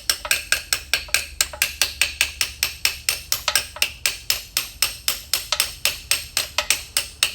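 Rapid, even hammer taps, about five a second, driving a part out of a truck transmission.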